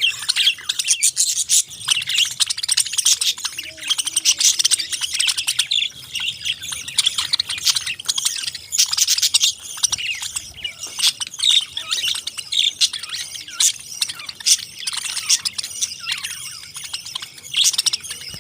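Pet parakeets chirping and chattering, many quick high calls overlapping without pause.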